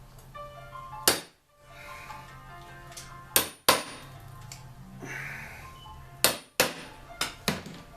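Background music with sharp metal knocks and clinks from tools worked on the scooter's two-stroke engine: one about a second in, two close together near the middle, and a quick run of four near the end.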